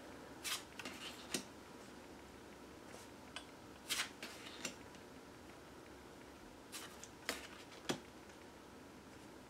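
Tarot cards being turned over one at a time and laid down on the deck: three faint groups of soft card slides and taps, a few seconds apart.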